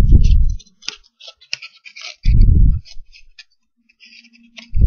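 A sheet of paper being folded and tucked by hand, crackling and rustling in many short ticks. Two loud low thuds, one at the start and one about halfway through.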